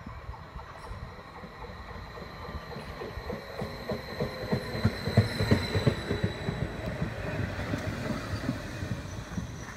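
DB Stadler FLIRT 3 (class 1428) electric multiple unit pulling into the platform and slowing. Its wheels clatter over the rail joints, loudest about halfway through as the cars pass close, over a thin high whine.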